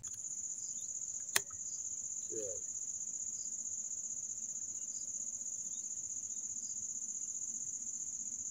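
Steady high-pitched chirring of insects, with one sharp click about a second and a half in.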